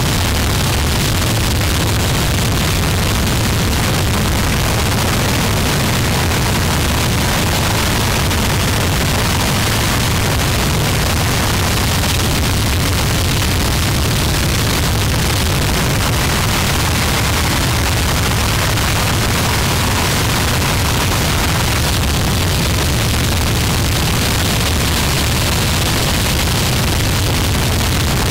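Harsh noise music: a dense, unchanging wall of distorted static, heaviest in the low bass with hiss across the top, held at a constant high loudness.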